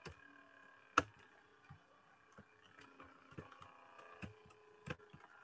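Scattered computer keyboard key presses and clicks, about eight sharp ones, the loudest about a second in, over a faint steady hum.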